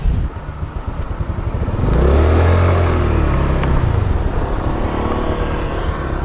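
Motor scooter engine pulling away about two seconds in, its pitch rising and then easing off, then running steadily at riding speed.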